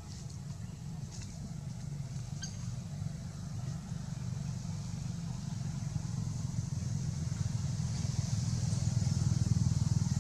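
Low, steady rumble of a motor vehicle's engine, growing louder toward the end as it draws closer.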